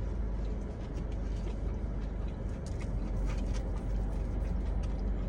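A mouthful of chicken nuggets being chewed, heard as faint scattered clicks, over a steady low rumble from a car.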